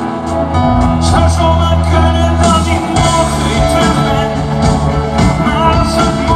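Live pop-rock band playing in a large arena with a male lead singer, heard from the audience: a steady bass line under drums and guitar.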